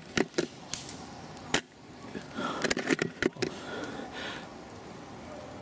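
Scattered sharp clicks and snaps, a few at the start and a quick cluster around the middle, with soft rustling in between.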